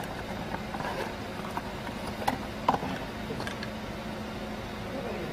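A few sharp metallic clinks and knocks over a steady low hum, the two loudest a little past halfway.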